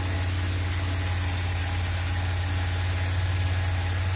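1969 Dodge A100 van's 318 V8 idling steadily just after a cold start, heard with the engine cover off. It has a little lifter noise, which is expected to settle as the engine comes up to temperature.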